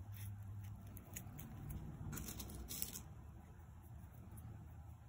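Faint rustling and scratching of fabric ribbon being folded and handled against a foam ball, with small light clicks, and a louder scratchy rustle about two to three seconds in.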